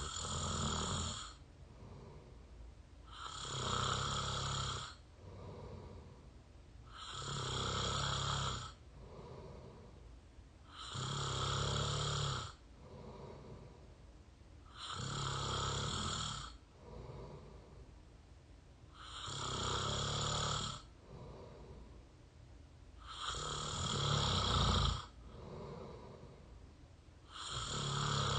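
A person snoring through the open mouth, close to the microphone: a loud snore about every four seconds, each lasting about one and a half seconds, with a quieter breath between snores.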